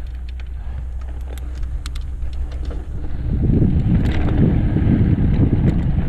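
Mountain bike riding down a dirt trail: wind rushing over the microphone and the tyres rolling on dirt, growing louder about three seconds in, with scattered small clicks and rattles from the bike.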